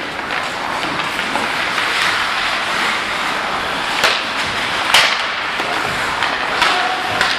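Ice hockey play: skates scraping on the ice under a steady rink noise, with sharp clacks of sticks and puck, the loudest about four and five seconds in.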